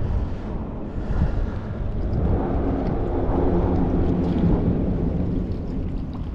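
Loud, steady low rumbling noise, starting abruptly at an edit.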